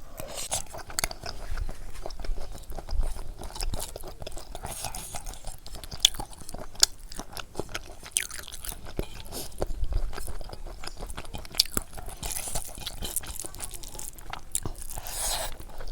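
Close-miked eating of pork curry and rice: chewing and crunching bites with wet mouth clicks, and a few sharper snaps partway through.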